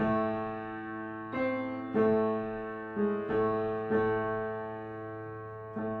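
Upright piano played with both hands: the teacher's duet accompaniment part, chords struck roughly once a second and each left to ring and fade.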